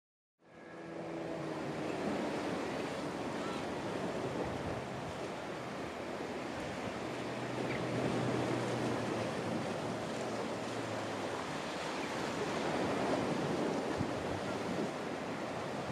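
Steady rushing noise of wind and surf at the shore, fading in during the first second. A faint low hum runs for a few seconds in the middle.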